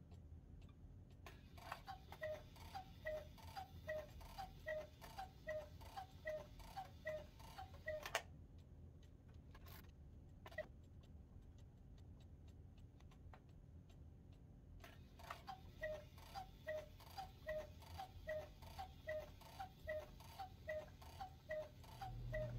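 1950s German cuckoo clock's bellows-driven whistle pipes giving a run of two-note cuckoo calls, a pause with faint ticking, then a second run of calls. The clock is counting out the hours and striking one too many (ten calls at nine o'clock), a fault the restorer believes came from the rack snail being set one tooth out.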